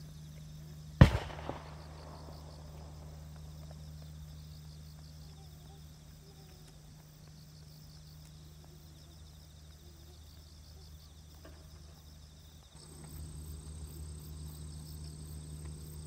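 A bird scarer in the rice fields fires once about a second in: one loud bang that echoes away, with a weaker echo half a second later. It goes off to keep birds off the ripening rice.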